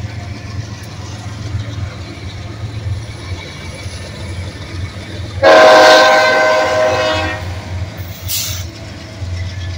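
A BNSF locomotive's air horn sounds one blast of about two seconds, a chord of several tones, starting about halfway through. It rings over the steady rumble of passing diesel locomotives. A short hiss follows soon after.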